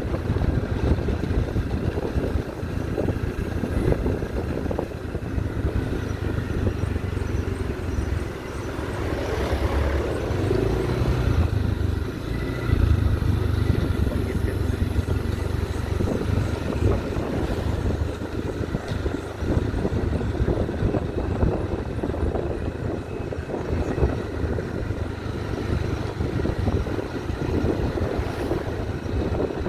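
Motorcycle engine running at riding speed over a rough unpaved road, with road and wind noise and frequent small knocks and rattles.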